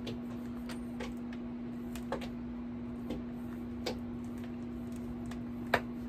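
Light plastic clicks and taps as the power cord is wound around the base of a Steamfast SF-727 mini travel steam iron: a handful of scattered ticks, the loudest near the end, over a steady hum.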